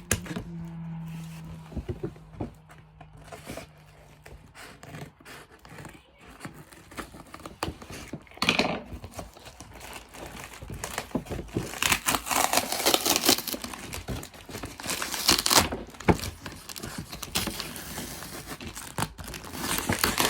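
Cardboard shipping box being torn apart by hand, with tearing, scraping and crinkling of cardboard and packing, in irregular bursts that are loudest around twelve to sixteen seconds in and again near the end.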